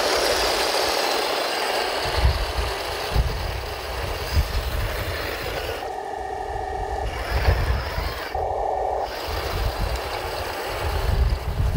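Radio-controlled Taigen M41 Walker Bulldog model tank driving over dirt: its drive motors and tracks running with a continuous whir and uneven low rumbles. Twice, around the middle, a short steady pitched tone takes over.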